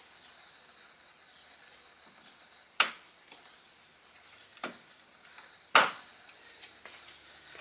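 Plastic push clips on a Subaru Crosstrek's upper grille trim panel snapping into place as the panel is pressed down: three sharp clicks over about three seconds, the last the loudest, followed by a few fainter ticks.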